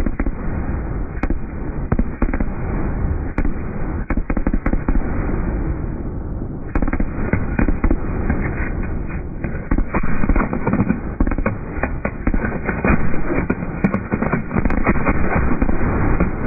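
Fireworks finale: a dense barrage of overlapping booms and sharp cracks over a continuous rumble, growing thicker about halfway through.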